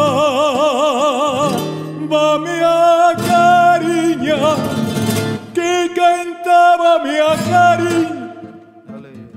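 A man singing in flamenco style, with a wide vibrato and long ornamented held notes, over acoustic guitar; the song trails off near the end.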